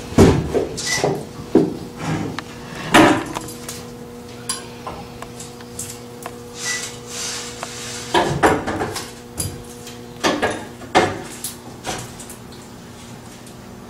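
Irregular knocks and metallic clatters as a worker handles parts at the end of a reverse-osmosis membrane test vessel, loading it for a test. The knocks come in clusters, with a steady hum underneath.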